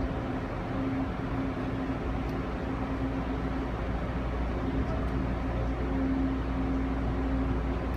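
Inside an Amtrak Amfleet passenger coach: steady train cabin rumble and hiss, with a low hum that fades in and out.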